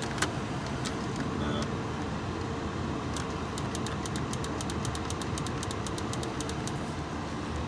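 A 2004 Mini Cooper's heater/AC control being worked: a single sharp click, then a quick even run of clicks, about five a second, like a control knob being turned through its detents. A steady hum runs underneath.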